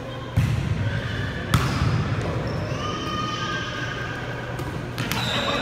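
Volleyball being struck by hands during a rally on an indoor hardwood court: sharp slaps that echo in the gym, one just after the start, a sharper one about a second and a half in, and a spike hitting a block at the net near the end.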